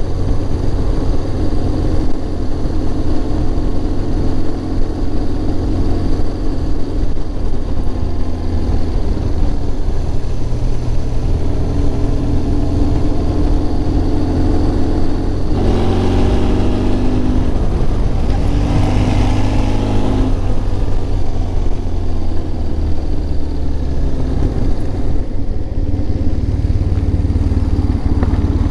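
Motorcycle engine running while riding, with the engine picking up speed about halfway through and then easing off again.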